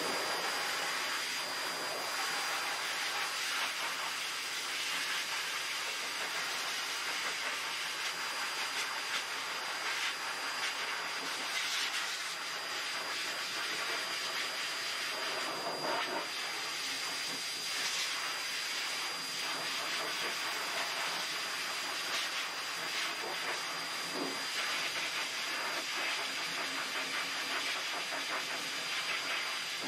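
Professional high-velocity dog dryer blowing a steady, really loud rush of air through its hose, with a thin high whine running over the hiss.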